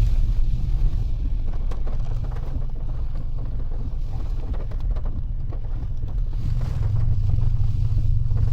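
Low, fluctuating rumble of a Mitsubishi Delica van on the move, with wind buffeting the microphone and a few faint knocks.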